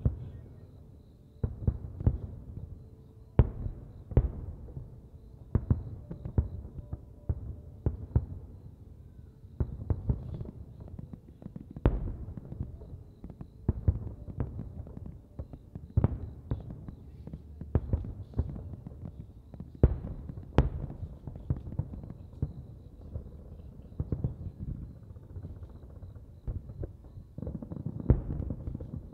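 Aerial fireworks bursting in quick, irregular succession: many deep booms, one after another, with a low rumble in between.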